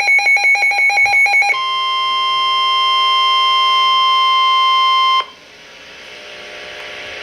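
Rapid electronic alert beeping, about nine pulses a second, for the first second and a half, then a steady NOAA Weather Radio warning alarm tone, near 1050 Hz, held for nearly four seconds before it cuts off suddenly into radio hiss that slowly grows louder.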